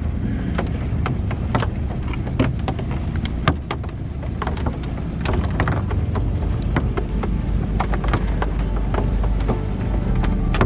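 Gillnet paying out over the side of a small fishing boat, its weights and floats clattering against the hull in many quick sharp clicks. Beneath runs the boat's motor as a steady low drone, with water washing along the hull.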